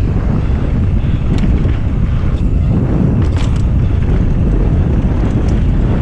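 Heavy wind buffeting on the microphone of an FPV drone's onboard camera in fast forward flight: a loud, steady low rumble with no clear motor tone.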